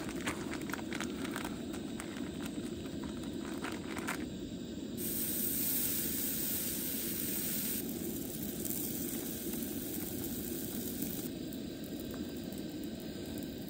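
Steady rushing hiss, with a few light clicks in the first few seconds and a brighter, sharper hiss from about five to eight seconds in.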